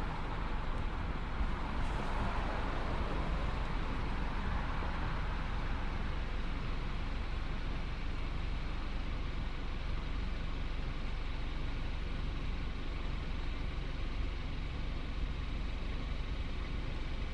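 Steady road noise from highway traffic passing close by, over a low steady rumble. One vehicle swells and fades within the first few seconds.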